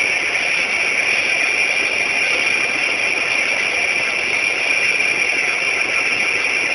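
Hail pelting down in a steady, dense clatter of countless small impacts.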